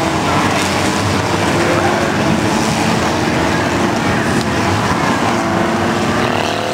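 A field of enduro stock cars racing as a pack, many engines running at once, with several engine notes rising and falling over one another.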